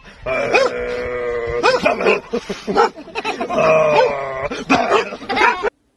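A dog howling: two long, drawn-out howls with short rising yelps between them. The sound cuts off suddenly near the end.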